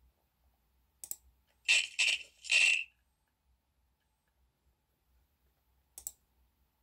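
A sharp click of the PowerBook 3400c's trackpad button about a second in. Then three short, loud bursts of a sound effect as the fortune is drawn. A second trackpad click comes near the end.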